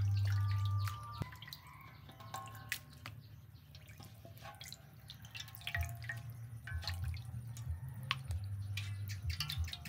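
Liquid batter dripping and splashing in a wok as chicken pieces are dipped, stirred by hand and lifted out, in many small irregular drips and plops. A low steady hum runs underneath in the first second and again through the second half.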